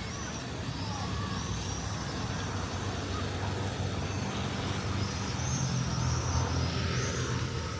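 Town street ambience: a steady low rumble of traffic that grows a little louder in the second half, with small birds giving short high chirps again and again over it.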